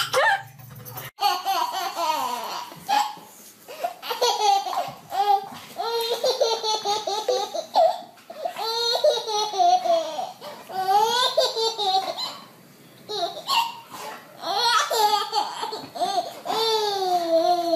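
Babies laughing in repeated fits, with short pauses between.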